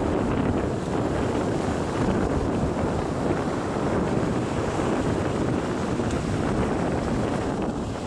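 Heavy ocean surf breaking and washing up the shore, a steady low rush, with wind buffeting the microphone.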